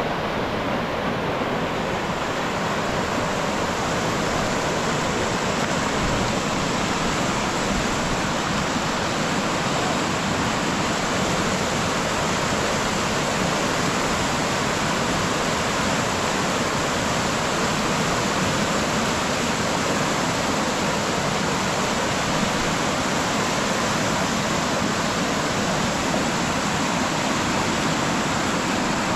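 Floodwater rushing steadily, an even loud hiss with no breaks.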